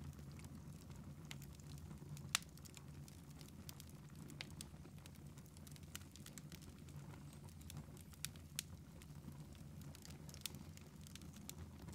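Log fire in a fireplace crackling faintly, with scattered sharp pops, the loudest about two seconds in and two more close together near the end.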